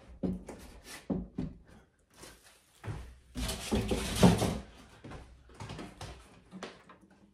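Foam packing end caps being pulled off a computer tower and pushed into a cardboard box: a run of scrapes, rustles and knocks, loudest about halfway through.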